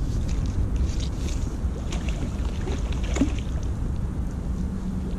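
Wind buffeting the microphone in a low rumble, with scattered splashes from a hooked carp thrashing at the surface close to the bank.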